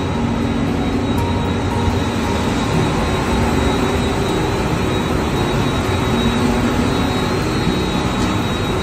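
High-speed printing press for plastic film running at speed: a steady, loud mechanical noise of rollers and drives, with a faint high whine over it.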